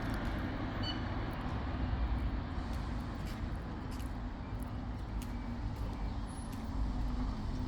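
Road traffic: a steady low rumble of vehicle engines and tyres, with a faint engine hum running through it.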